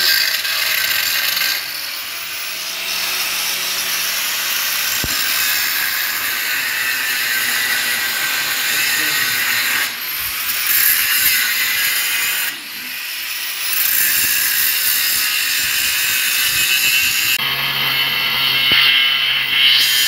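Electric angle grinder grinding into the edge of a door: a loud, steady, hissing grind. It is eased off twice, about ten and thirteen seconds in, and each time spins back up with a rising whine.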